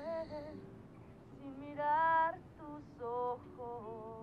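A woman singing a slow, wordless melody in held notes with a wavering vibrato, loudest about two seconds in, over soft low sustained tones.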